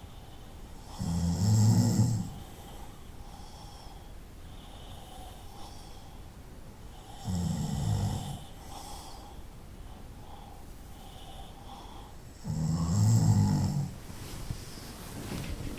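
A person snoring: three loud snores, each about a second and a half long, spaced five to six seconds apart.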